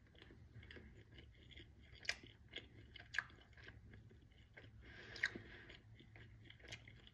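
A person quietly chewing a mouthful of cornbread, with soft, irregular mouth clicks and smacks and a few sharper ones about two, three and five seconds in.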